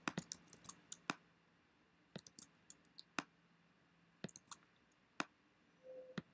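Faint clicks of a computer mouse and keyboard, coming irregularly in small groups as items are copied, pasted and dragged on screen.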